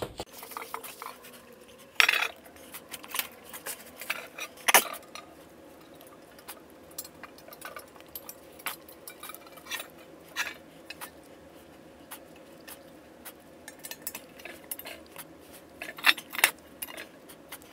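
Steel transmission pump parts and hand tools clinking and clanking as an automatic transmission oil pump is taken apart. There are a few louder metal knocks, two close together near the end.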